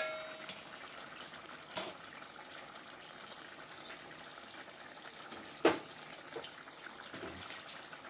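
Mushroom curry simmering in an aluminium pot on a gas stove: a steady hiss, with a few light knocks of a steel spoon against the pot.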